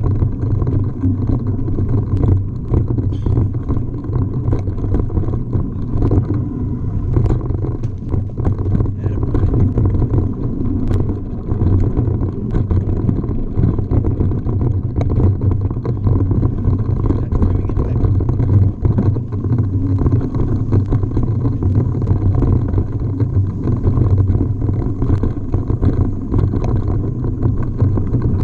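Mountain bike rolling fast down a dirt singletrack, heard from a camera riding on the bike: a steady low rumble of wind buffeting and tyre noise, with frequent small clatters and knocks as the bike goes over bumps.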